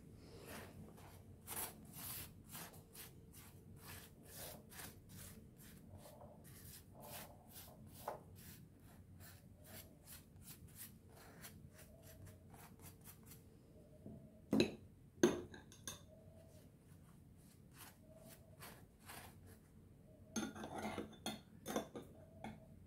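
Faint kitchen handling: a run of quick rubbing and scraping strokes, two sharp louder knocks a little past the middle, and a short clatter of dishes or utensils near the end.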